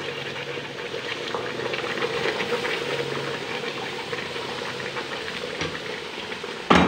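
Hot sugar syrup sizzling and crackling as it hits roasted semolina in a pot, with a wooden spoon stirring through it. A single sharp knock near the end.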